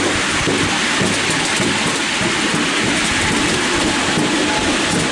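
Miniature railway train running along its track, a steady noisy rumble and rattle heard from a passenger seat on board.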